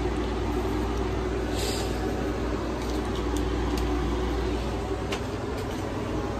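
Steady low machine hum with a few faint clicks and a short rustle about one and a half seconds in.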